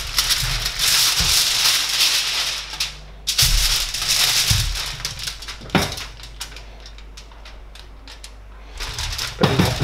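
Aluminium foil crinkling and rustling as hands rub oil into a raw suckling pig and shift it around on the sheet. The crinkling comes in spells, stops briefly about three seconds in, thins to scattered crackles past the middle, and picks up again near the end.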